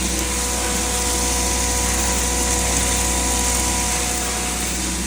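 A 7.5 HP poultry feed (maize) grinder running steadily. Its even machine hum carries a few constant whining tones and a continuous hiss, with no change in speed.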